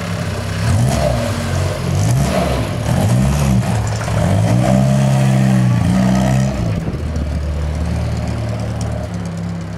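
1965 MG Midget's four-cylinder BMC A-series engine revving up and down several times, then held higher for about two seconds as the car drives off. About seven seconds in it drops to a steadier, lower note.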